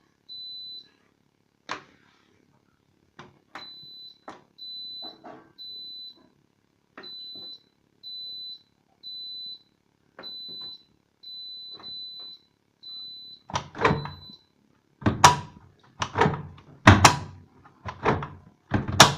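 An electronic beeper sounds short, high beeps about once a second, with light clicks and knocks between them. The beeping stops near the end, and several loud knocks follow.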